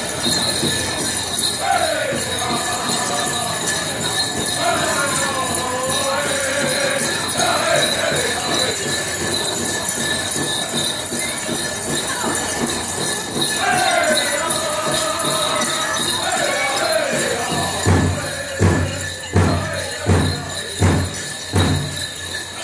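Powwow dancers' bells jingling steadily over powwow singing, with voices rising and falling in chant. Near the end comes a run of heavy low beats, about three every two seconds.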